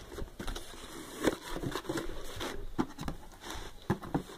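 Cardboard firework cake boxes being handled and shifted, with irregular knocks, taps and rustling.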